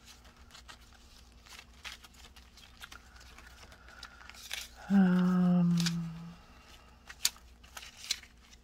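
Paper cut-outs being flicked through and shuffled by hand, with faint rustles and light taps. About five seconds in, a woman gives a long, steady hummed "hmm" lasting over a second, the loudest sound here.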